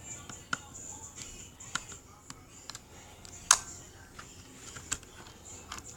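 Scattered light clicks and taps of laptop parts being handled and fitted during reassembly, with one sharper click about three and a half seconds in.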